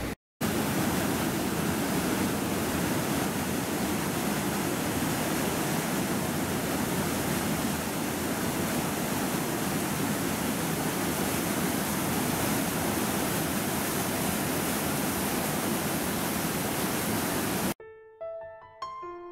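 Steady, loud roar of rushing water. Near the end it cuts off suddenly and instrumental music with a melody of single notes begins.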